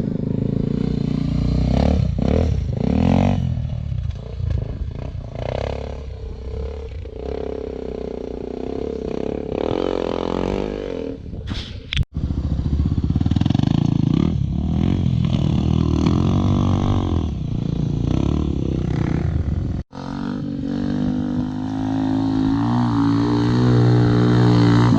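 Dirt bike engines revving on an enduro track, the pitch rising and falling as the riders work the throttle. The sound cuts out abruptly twice, about 12 and 20 seconds in.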